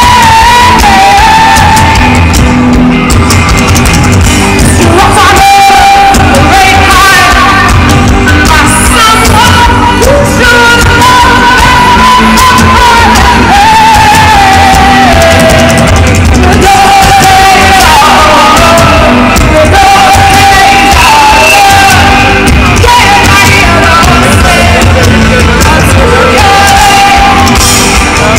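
Loud live rock music with a female lead singer carrying the melody over the full band, heard through the festival PA from within the crowd, with the crowd shouting along.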